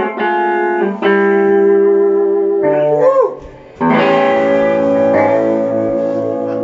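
Electric guitar playing held blues chords, with a note sliding up and down in pitch about three seconds in, then a closing chord struck about four seconds in and left to ring.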